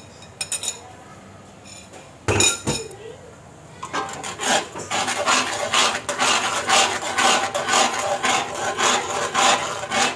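A utensil scraping and stirring in a metal cooking pan, in quick strokes of about three a second from about four seconds in, after a louder clatter about two seconds in.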